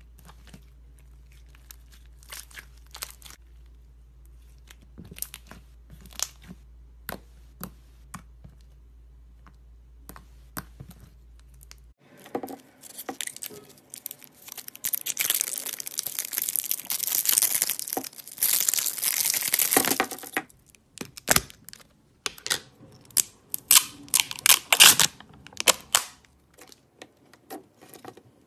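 Sticky slime squished under a hand, giving scattered small clicks and pops. About twelve seconds in comes a loud scratchy rustling and tearing while a plastic putty tub is handled, followed by bursts of sharp crackling pops as putty is pressed and stretched between fingers.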